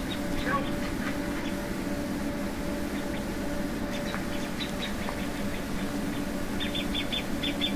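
Steady low hum of the stationary Indian Pacific passenger train idling at the platform, several even tones held unchanged. A short burst of rapid high chirps comes near the end.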